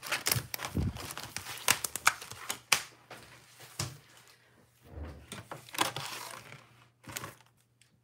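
Paper and plastic packaging being handled on a cutting mat: crinkling and rustling with many sharp clicks and taps in the first few seconds, then softer sliding rustles.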